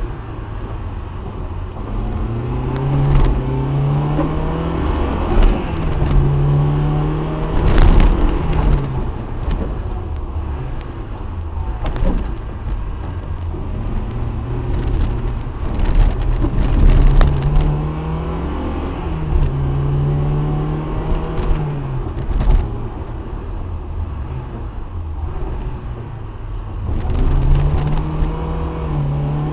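Car engine heard from inside the cabin, revving up and dropping back several times as it accelerates through the gears. Sharp knocks and thuds come through the body on a rough, wet road, the loudest about a third of the way in.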